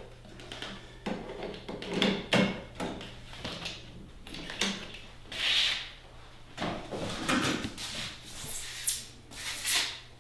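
Cardboard boxes and white packing tubes being handled: irregular knocks, bumps and rustles, with a hissy rub about halfway through and a couple of short high scrapes near the end.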